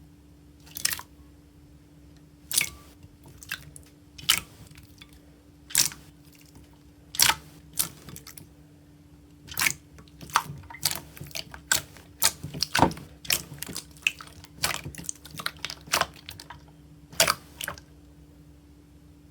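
Slime being pressed and poked by hand, giving sharp wet pops and crackles at irregular intervals, thicker in the middle, over a faint steady hum.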